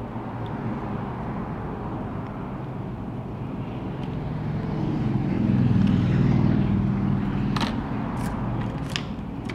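A low vehicle engine hum that swells and then eases off, like a vehicle passing by, with a few short sharp clicks near the end.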